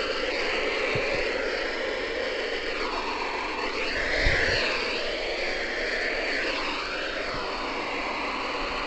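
Loud, steady hiss of radio static from a weather radio receiver on a weak NOAA Weather Radio signal, its texture wavering and swirling, with a couple of soft low thumps.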